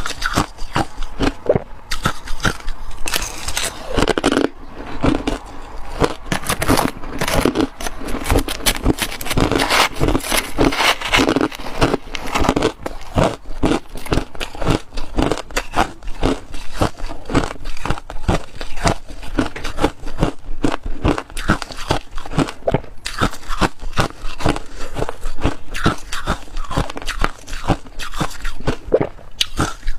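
Ice being bitten and chewed, a dense run of sharp cracking crunches with hardly a pause.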